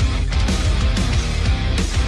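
Loud heavy rock music with distorted electric guitar and a driving beat.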